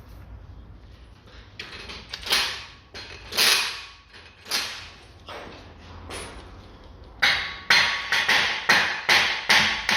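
Hammer blows on the end of a seized driveshaft to drive it out of the front wheel hub: three spaced strikes, then a quicker run of about seven, with a faint metallic ring.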